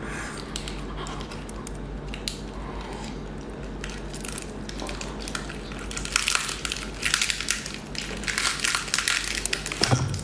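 Biting and crunching into chili-coated shell-on seafood. Scattered crunches at first, then dense, loud crackling crunches through the second half.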